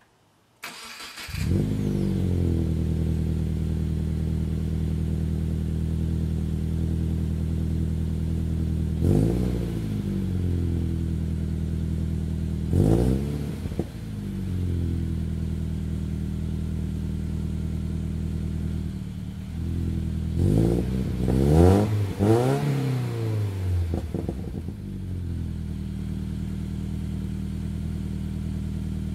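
2019 Subaru Impreza's 2.0-litre flat-four cold-started through a Nameless Performance axle-back exhaust with a 5-inch muffler: a short crank, then it catches and settles into a steady deep idle. It is blipped briefly about 9 and 13 seconds in, and several times in quick succession about 20 to 23 seconds in, the pitch rising and falling each time.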